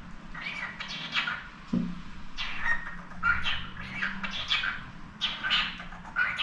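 Pet parakeet chattering: short clusters of squawky chirps and warbles, roughly one cluster every second.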